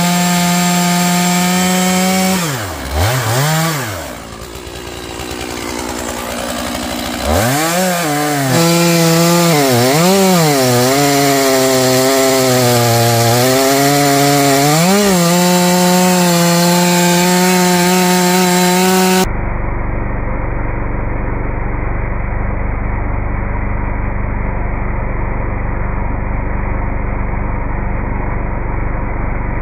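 Stihl MS461 two-stroke chainsaw cutting Douglas fir logs. It runs at high revs, with the engine pitch dipping and recovering several times as the chain loads in the cut and the throttle is eased. About two-thirds through, the sound changes abruptly to a duller, muffled steady noise.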